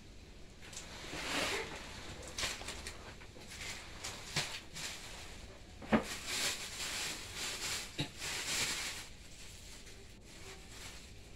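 Plastic packaging rustling and crinkling as it is handled, with a few sharp crackles or clicks, the loudest about six seconds in.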